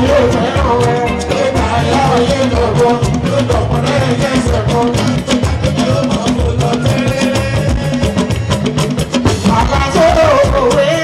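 Live fuji music: a man's lead voice singing over a band of hand drums and percussion.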